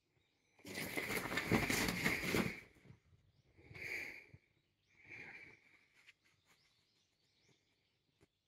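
Duvet fabric rustling as a cat wrestles a wand toy on it: three bursts of rustling, the first about two seconds long and the loudest, then faint scratches and ticks.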